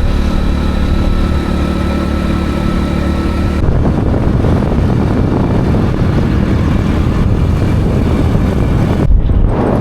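A vehicle engine running: a steady, even hum for the first few seconds, then a rougher, noisier sound from about three and a half seconds in, with a short low thump near the end.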